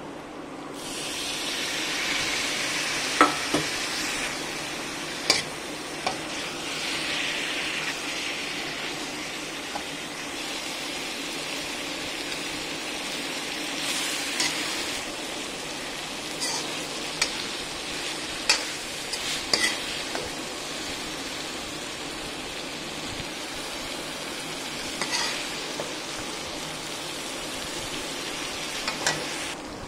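Potato and cauliflower sizzling in oil in a steel wok while a steel spoon stirs them, clinking and scraping against the pan a dozen or so times. The sizzle is strongest in the first several seconds.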